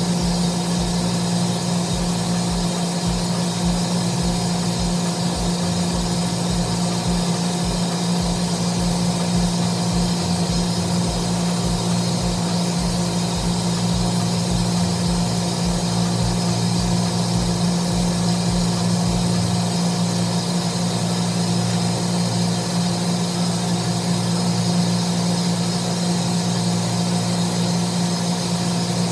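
Steady mechanical hum of running plant-room machinery, a strong low drone with a low pulsing about twice a second that fades out about two-thirds of the way through.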